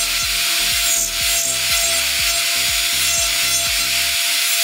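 Nail file rasping across a polygel nail in repeated back-and-forth strokes as the nail is shaped and thinned.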